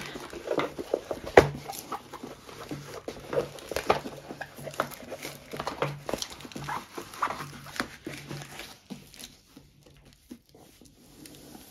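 Diamond-painting canvas and its cover paper being rolled back on itself on a wooden table: irregular rustling and crinkling with scattered taps, a sharp click about a second and a half in, and an intermittent low hum. The handling thins out near the end.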